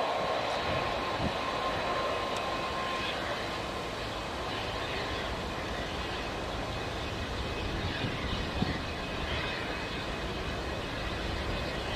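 Four jet engines of a Boeing 747 freighter running at low power as it taxis and turns onto the runway: a steady jet rumble and hiss, with a high whine that fades out about three seconds in.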